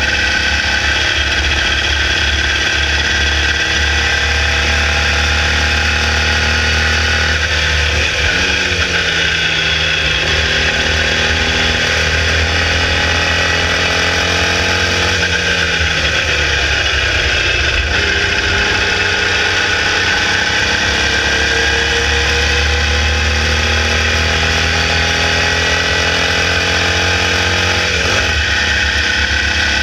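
Air-cooled 1200cc Volkswagen flat-four of a Formula Vee race car at racing speed, heard from on board. The engine note climbs steadily, with sharp drops in pitch about eight seconds in and near the end, and a dip around fifteen seconds in.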